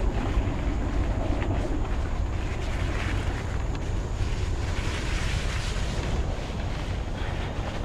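Wind buffeting the microphone of a camera on a bike ridden along a dirt and gravel trail: a steady low rumble, with the hiss of tyres rolling over the ground and faint light rattles.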